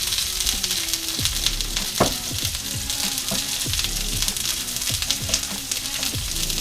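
Sliced peppers, onions and mushrooms sizzling and crackling in hot oil in a pan, with a spatula scraping and knocking against the pan as they are stirred; one sharper knock about two seconds in.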